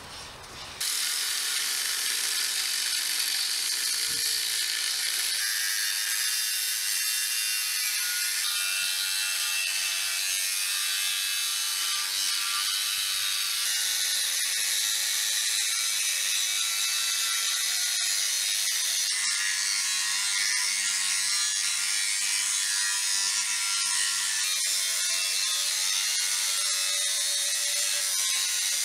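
Angle grinder with an abrasive cut-off disc cutting through a square steel profile pipe: a steady, high-pitched grinding that starts suddenly about a second in and holds at an even level.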